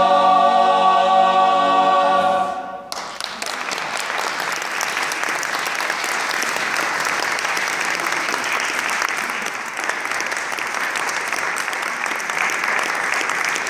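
Male choir holding a last a cappella chord, which cuts off about three seconds in; audience applause follows.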